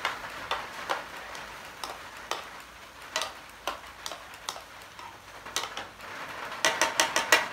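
Metal tongs clicking and scraping against a skillet as diced summer squash and peppers are stirred, over a soft steady hiss. The clicks come every half second or so, then a quick run of clicks near the end.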